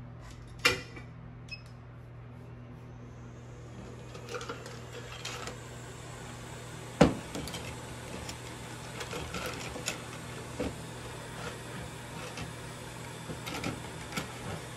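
Small tools handled on an electronics repair bench: a few sharp taps and clicks, the loudest about halfway through, over a steady low hum and hiss from bench equipment.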